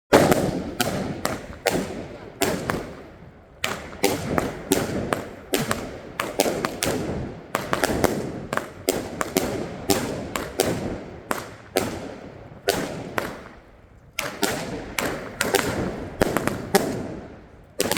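Batteria napoletana, a chain of ground firecrackers, going off in a rapid, irregular series of loud bangs, each trailing off in a short echo.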